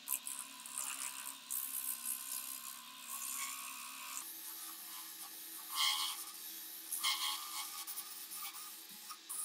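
Wood lathe spinning a wooden handle while a hand-held tool scrapes against the turning wood, exposing fresh wood. A steady motor hum steps up in pitch about four seconds in, with louder scraping strokes a couple of seconds later.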